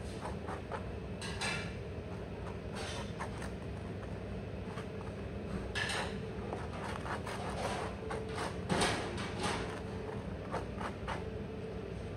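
Table knife scraping spread across a slice of toast in short strokes, with light clicks of the knife against the plate, over a steady hum of restaurant background noise.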